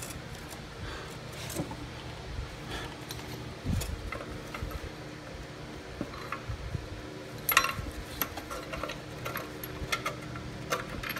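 Steel mounting bolts clinking and tapping against a steel lawnmower deck as they are started by hand into the engine mounting holes: scattered light metallic clicks, the loudest about seven and a half seconds in.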